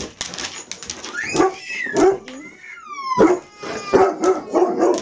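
Bernese Mountain Dog whining and yelping in excitement, impatient to be fed, while its claws clatter on a wooden floor as it bounces about. Near the middle a high whine drops sharply in pitch, followed by a run of quick cries.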